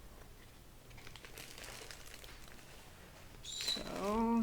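Faint rustling and crinkling of packaging as the printer's accessories are handled and unwrapped; a voice begins near the end.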